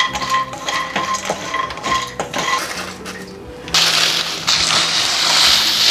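Small clicks and clinks of dry whole spices, then about four seconds in an electric mixer grinder starts suddenly and runs loud, grinding the roasted whole spices into garam masala powder.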